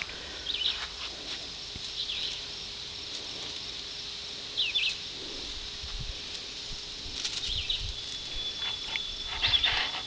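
Birds chirping in short scattered calls, with a thin steady high tone toward the end, over faint low bumps of the camera being handled.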